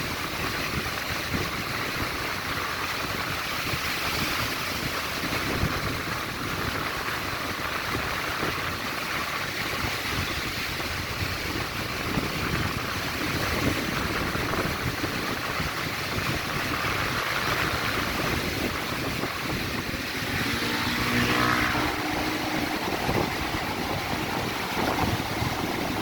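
Steady rushing storm noise of strong wind, big waves and heavy rain, with gusts buffeting the microphone. A motor engine hums past briefly about four-fifths of the way through.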